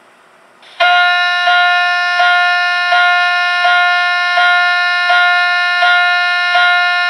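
Custom-built electronic alarm, set off through its microswitch, sounding a loud continuous tone that starts less than a second in and pulses about every three-quarters of a second.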